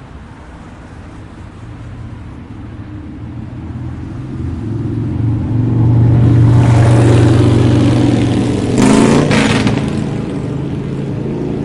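A motor vehicle's engine approaching and passing close on a city street. Its low hum builds to loudest about six to eight seconds in, with a short hissing burst near nine seconds, then the pitch drops as it moves away.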